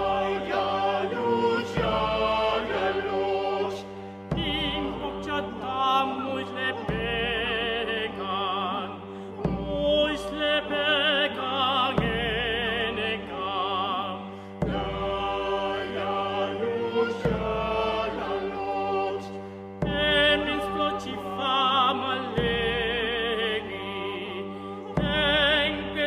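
Music: a solo voice singing in an operatic style with a wide vibrato, in the Mochica language, over long held low notes that change every two to three seconds.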